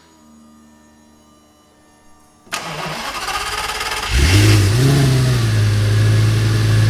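Lamborghini Gallardo V10 starting: cranking begins about two and a half seconds in, and the engine catches about four seconds in with a short rise in revs. It then drops back to a steady idle, running through its valved exhaust with the valve in quiet mode.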